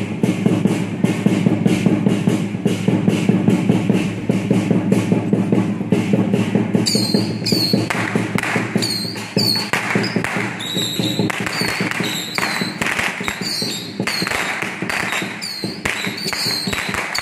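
Taiwanese temple-procession percussion, drums and gongs beaten fast in a steady driving rhythm. A higher metallic ringing, like cymbals, joins about seven seconds in.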